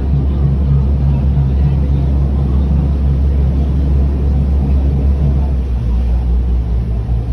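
Tour boat's engine running steadily, a loud low drone with a pulsing throb, heard from on board; the drone shifts slightly about six seconds in.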